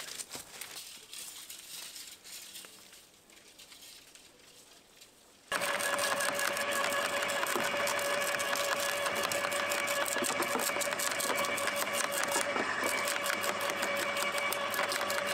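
Wood chipper starting abruptly about five seconds in and then running steadily at full speed, with a dense, rapid clatter over a steady hum.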